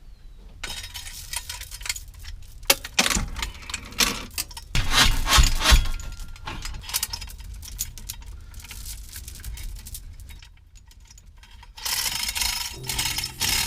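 Irregular metal clattering, rattling and scraping as a heavy diesel engine is worked into place on a hoist, loudest about halfway through, with a short lull near the end.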